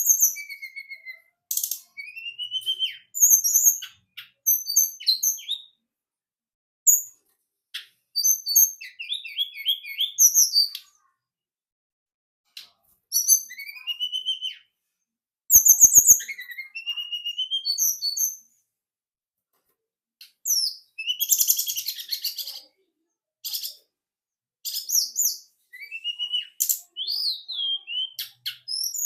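Tledekan gunung (a small Javanese hill songbird) singing in short, quick phrases of high chirps and rising and falling whistled notes, with brief pauses between phrases and a denser chattering run after about twenty seconds. It is a lure song meant to set a silent bird of the same kind singing back.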